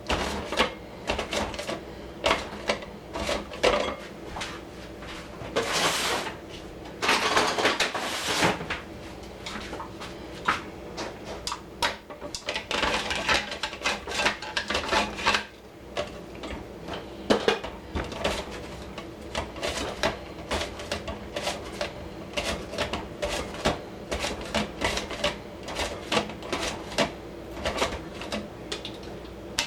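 Pickle cucumbers being sliced on a mandoline slicer: a long run of quick scraping strokes and clicks, with a few longer sliding swishes.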